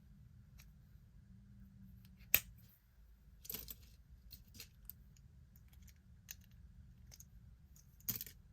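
Small metal earrings clicking and clinking as they are picked up and sorted by hand: a handful of separate light clicks, the sharpest about two seconds in.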